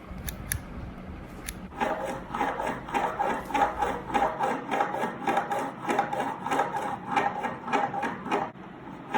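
A plastic ruler sawed back and forth against the edge of a table, making rasping strokes with a ringing tone, about two to three strokes a second, to imitate a saw. It starts about two seconds in and stops shortly before the end, after a few sharp clicks.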